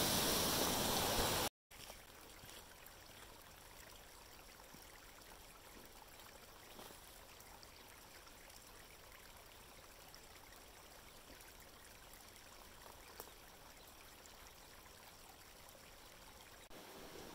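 A faint, steady trickle of shallow water running over a muddy trail. It is preceded by a louder, even rushing noise that cuts off suddenly about a second and a half in.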